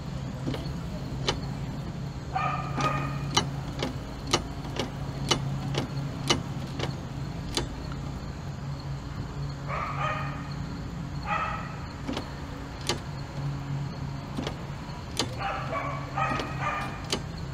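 Dodge Dakota windshield wipers running to test a freshly replaced wiper linkage bushing: a steady low hum with sharp clicks every half second to a second. A dog barks in short bursts four or five times.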